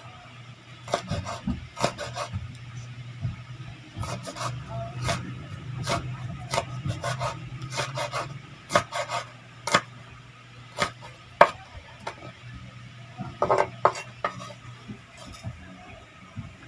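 Kitchen knife chopping red chili peppers on a wooden cutting board: irregular runs of sharp taps of the blade on the board, with short pauses between the runs.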